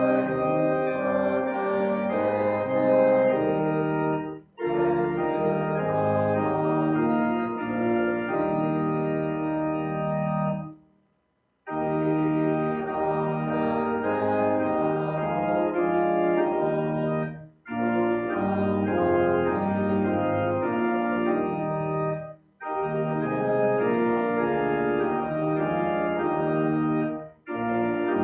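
Church organ playing a hymn in held chords, phrase by phrase, with short breaks between phrases and a pause of about a second near the middle.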